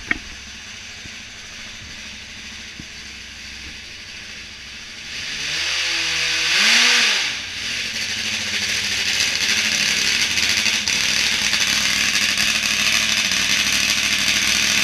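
Drag motorcycle's engine starting about five seconds in, revving up and back down once, then running loud and steady.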